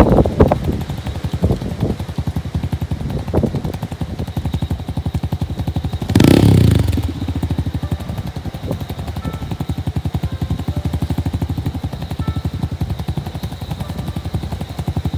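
Wind buffeting the microphone on an exposed hilltop: a steady fluttering rumble, with a strong gust about six seconds in.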